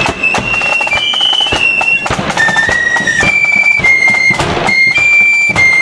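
Marching flute band playing a tune in unison: a high, shrill melody of short held notes over regular drum beats.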